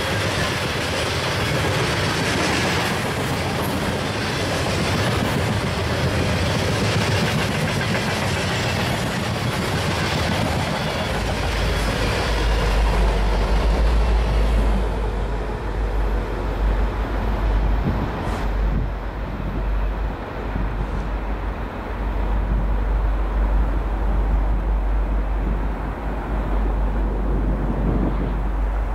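Freight train of open-top hopper cars rolling past, the wheels clicking and rattling over the rails. About halfway through, as the last car goes by, the rattle fades and a steady low rumble carries on.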